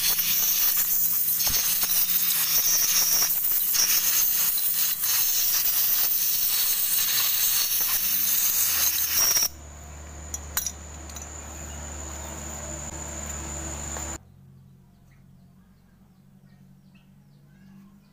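Loud steady hiss with scattered clicks, cutting off suddenly about nine and a half seconds in; a lower, quieter hum with a thin high whine follows for about five seconds, then it drops away to a faint background.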